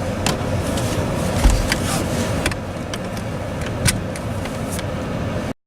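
Steady car road noise heard from inside the cabin, with a few scattered clicks and a low thump about a second and a half in, cutting off suddenly near the end.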